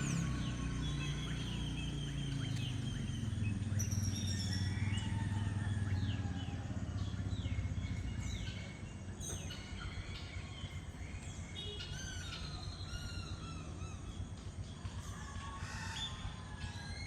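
A chorus of many birds chirping, trilling and calling over one another, over a low steady drone that fades about eight seconds in.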